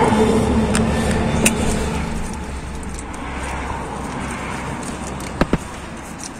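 Steady low drone of a running motor vehicle, loudest at the start and fading over the first few seconds, with a few sharp clicks from wires and a hand tool being handled.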